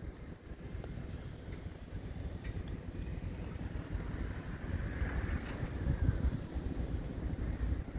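Strong wind buffeting the microphone: a gusty low rumble that swells about halfway through, with a few faint clicks.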